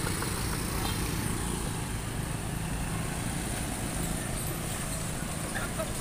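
A heavy container truck's diesel engine running slowly at low revs, a steady low rumble, with motor scooters passing close by.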